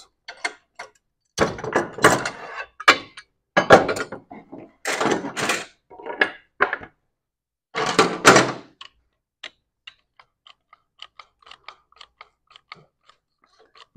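Clatter and thunks of a metal drill-press vise, C-clamp and plywood boards being handled and set down on the drill press table, then a run of small clicks, about four a second, as a one-handed quick-grip bar clamp is ratcheted tight onto the plywood.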